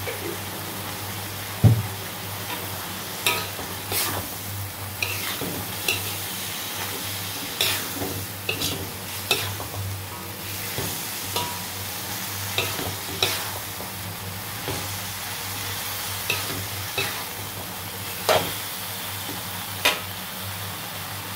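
A metal spatula scraping and knocking against a metal wok as beef liver and long beans are stir-fried, in irregular strokes over a steady sizzle of the food in the hot oil. The sharpest knock comes about two seconds in.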